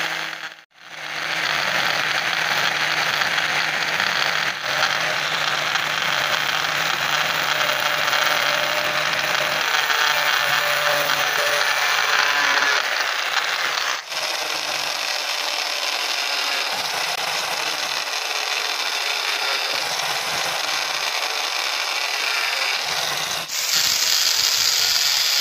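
Electric angle grinder fitted with a paper disc, running and cutting through a small PVC pipe: a steady high-pitched whine and grinding noise. It drops out briefly just under a second in and changes abruptly a few times where shots are cut together.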